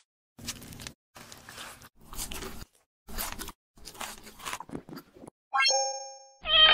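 Close-up crunchy biting and chewing of a lamb burrito in a flour tortilla, in separate bites about every half second to second. Near the end comes a short rising pitched sound effect, then a louder held tone that falls slightly in pitch.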